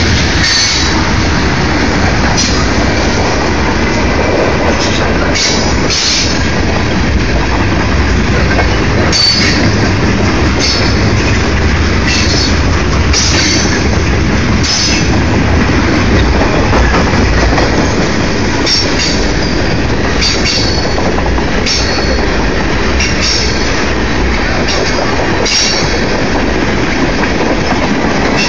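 Canadian National freight train's loaded tank cars rolling past close by: a steady heavy rumble of steel wheels on the rails. Short high-pitched wheel squeals break in irregularly every second or two.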